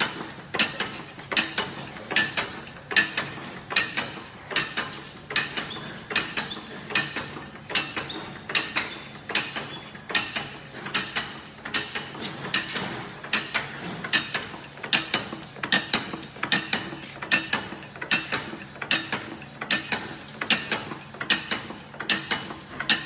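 Flat wooden spoon hot-pressing machine cycling, its mechanism giving a sharp clack in a steady rhythm of about four every three seconds.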